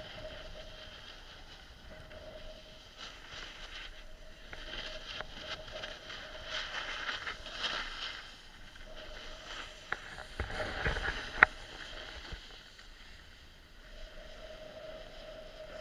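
Snowboard sliding down packed snow, its base and edges hissing and scraping in swells as it turns. About two-thirds of the way through come a few knocks, one of them sharp and the loudest sound.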